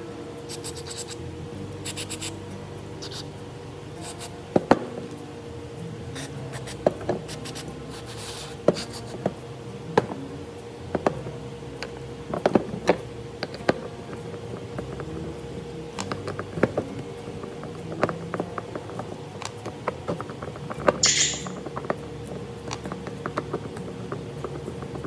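Scattered clicks and taps of a plastic Johnson/Evinrude outboard carburetor body and small screwdrivers being handled on a workbench, over a steady faint hum. Late on, one short hiss.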